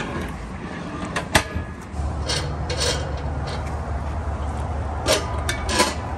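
Knocks, clanks and scrapes of a steel propane cylinder being unhooked and lifted out of a truck camper's exterior tank rack, one sharp knock standing out early on, over a low steady hum that comes in about two seconds in.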